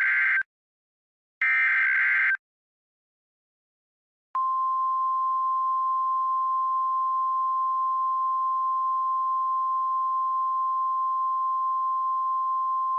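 Emergency Alert System SAME header ending: two warbling digital data bursts about a second apart, then a single steady attention tone of about 1050 Hz, the NOAA Weather Radio warning alarm, starting about four seconds in.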